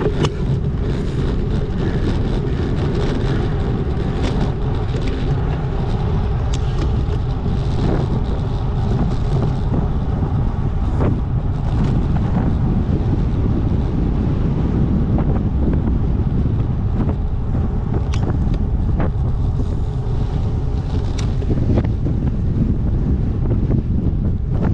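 Wind buffeting the microphone of a camera on a moving bicycle: a steady low rumble, with a few faint clicks now and then.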